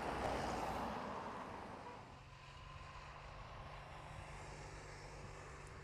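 A car passing close by, its road noise swelling and fading over the first two seconds, followed by the steady low drone of car engines from the race's following cars.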